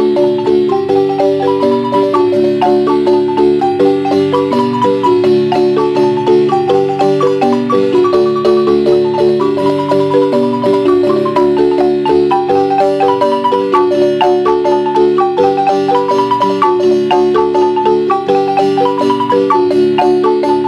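A wooden marimba played by three players with mallets, performing a Guatemalan son. The melody notes are rolled in fast repeated strokes over a steady lower accompaniment, and the playing runs continuously.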